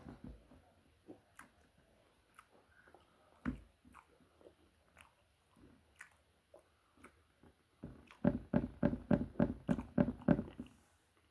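A person chewing food close to the microphone: scattered faint mouth clicks, then about eight seconds in a run of quick, closely spaced chewing sounds lasting a couple of seconds.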